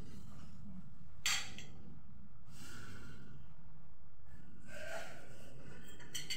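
A person's breath: a sharp breathy puff about a second in, softer ones later and another puff about five seconds in, over a steady low hum, with a few small clicks near the end.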